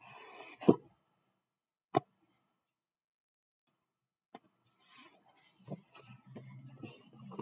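A large picture book being handled: a short rustle ending in a thump, a sharp tap about two seconds in, then paper rustling and handling noises as its pages are turned after a silent gap.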